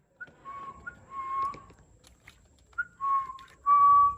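A person whistling four short two-note calls in two pairs, each a quick higher note falling to a held lower note; the last call is the loudest.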